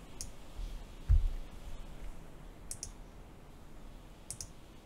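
Faint clicking from a computer at the desk, a few short double clicks spaced a second or two apart. A dull thump about a second in is the loudest sound.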